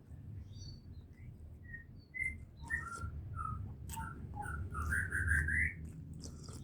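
Small birds chirping in short scattered calls, with a quick run of chirps about five seconds in. A few sharp clicks and a steady low hum sit underneath.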